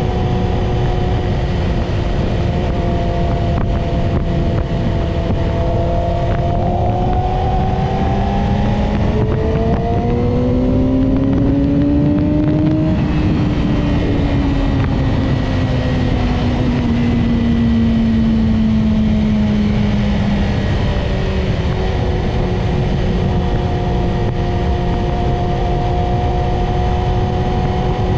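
Yamaha YZF-R6's inline-four engine running under way. Its pitch climbs steadily to a peak about halfway through, then falls slowly and settles, over a constant rush of wind and road noise.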